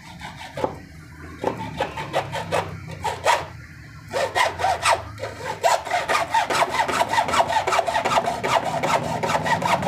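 Hand hacksaw cutting through a large electrolytic capacitor's metal can, with short rasping back-and-forth strokes. The strokes are slow and broken at first, then turn quick and steady and louder about four seconds in.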